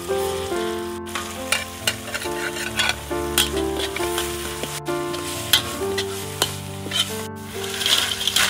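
Spatula stirring and scraping a red paste and a yellow ingredient frying in hot oil in a large black wok, the oil sizzling throughout, over background music. Near the end a tray of small crabs is tipped into the wok and the sizzle briefly grows louder.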